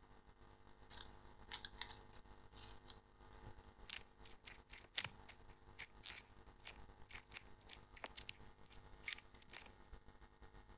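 Faint, irregular small clicks and ticks of hand assembly work: a small screwdriver and plastic screws worked against a carbon-fibre micro-drone frame, with parts handled. The sharpest click comes about five seconds in.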